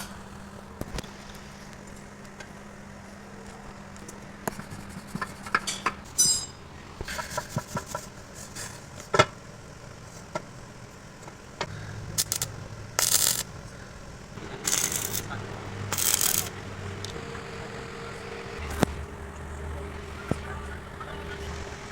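Metal tools clinking, knocking and scraping during heavy truck repair, with a few short hissing bursts about two-thirds of the way through over a faint steady hum.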